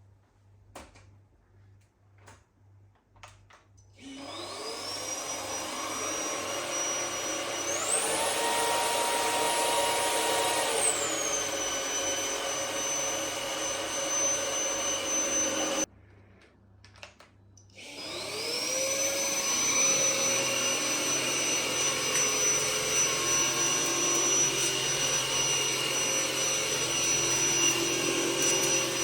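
Philips XC3031/01 cordless stick vacuum switched on. Its motor spins up with a rising whine and runs steadily, steps up to a higher pitch for about three seconds, then drops back. It switches off partway through, and after a few faint clicks it starts up again and runs steadily.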